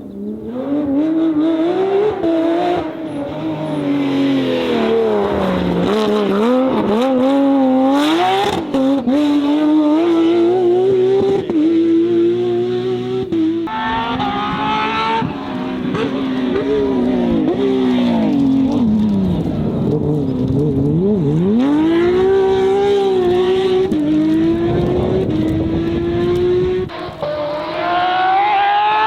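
Porsche 997 GT3 rally cars' flat-six engines revving hard, the pitch climbing and dropping again and again through gear changes and lifts. Several passes are cut together, with sudden changes about halfway through and near the end.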